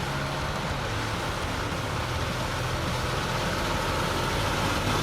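Logging truck engine running steadily, growing slightly louder near the end.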